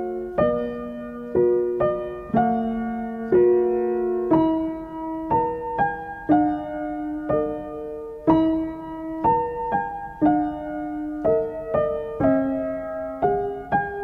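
Background piano music: slow, gentle notes and chords struck about once a second, each left to ring and fade.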